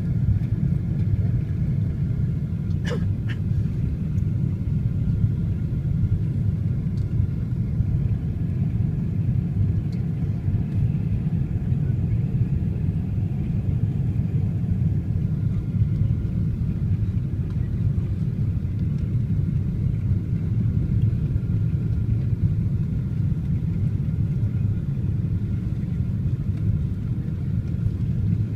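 Steady cabin noise of a Boeing 777-200 in flight on its approach, heard from a seat near the back: a dense low rumble of engines and airflow with a faint steady whine above it. A couple of faint clicks about three seconds in.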